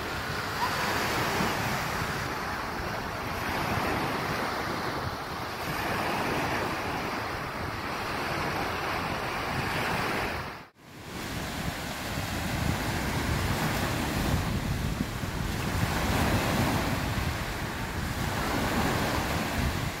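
Small sea waves breaking and washing up a sandy beach, the surf swelling and ebbing every few seconds, with wind rumbling on the microphone. The sound cuts out for a moment about halfway through.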